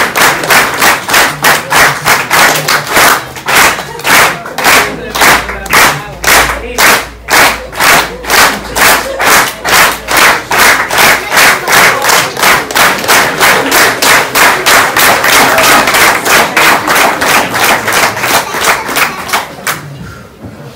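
Audience clapping in unison, about three claps a second, with crowd voices cheering underneath. The clapping dies away near the end.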